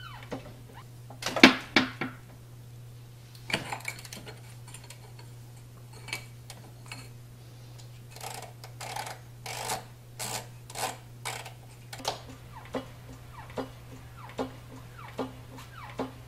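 Loose tools and cast-iron parts of a Chandler & Price printing press clanking. Then a long-handled ratchet wrench works a bolt, with a run of rhythmic ratcheting strokes about two or three a second, followed by lighter ticks. A steady low hum runs underneath.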